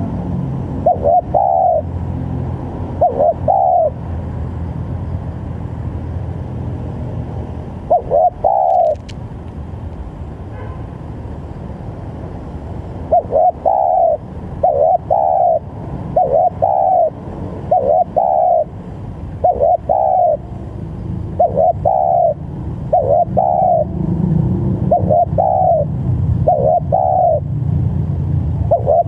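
Spotted dove cooing in repeated short two-part coos: a few spaced calls, a pause, then a steady run of about one coo a second from roughly halfway. A low steady rumble sits underneath and grows louder near the end.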